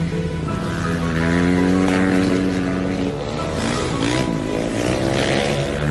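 Dirt-track motorcycle engine revving hard as the bike is slid sideways around a dirt oval. The engine note dips and climbs again about four seconds in.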